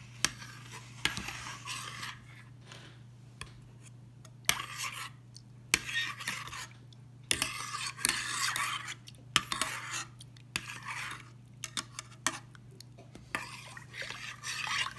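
Metal spoon stirring yogurt into warm milk in a stainless steel saucepan, mixing in the starter culture: bouts of scraping swishes against the pan, broken by sharp clinks of spoon on steel.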